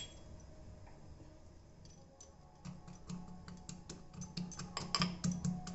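Stone pestle pounding roasted cashews and almonds in a small stone mortar, crushing them into small pieces. A quick, irregular run of short knocks starts about two and a half seconds in.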